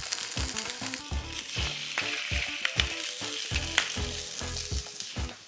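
Oiled trout fillets sizzling steadily as they are laid skin-side down in a hot cast iron skillet, with a few sharp pops of spitting oil. The steady sizzle shows the pan is hot enough to crisp the skin.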